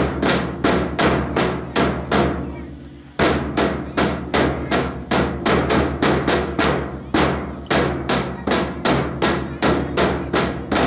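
Percussion beating out a steady drill rhythm, about three sharp strikes a second, each ringing out, with a break of about a second about two seconds in. A steady low tone sounds underneath.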